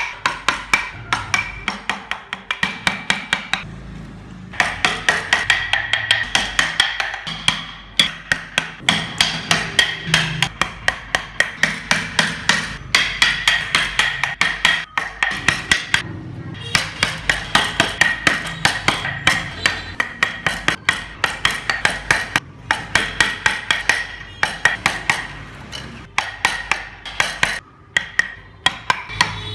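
Hammer striking over and over at a quick, even pace, about four blows a second, in runs with short pauses between them, with a ringing tone under the strikes.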